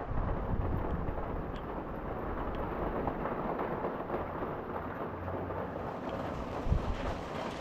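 Rainstorm: a steady hiss of rain with a low rumble of wind on the microphone, and one brief louder low thump near the end.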